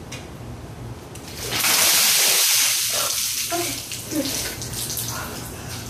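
A bucket of ice water dumped over a person, a loud splashing gush about a second and a half in that fades over the next two seconds.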